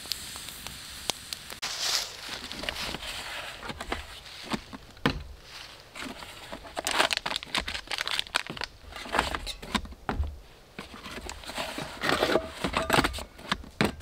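Wood campfire crackling, mixed with the rustle and crinkle of a coffee packet and scattered knocks of camping gear being handled.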